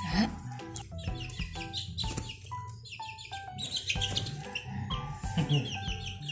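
Shamo chicks peeping in quick runs of short, high, falling calls, over background music with a steady bass line.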